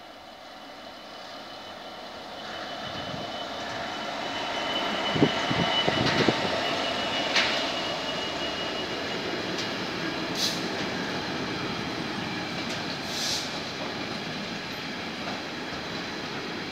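Class 66 diesel locomotive approaching and passing at the head of a freight train, growing steadily louder over the first five seconds, with a few sharp knocks about five to seven seconds in as it goes by. After that comes the steady, even running noise of the tank wagons rolling past.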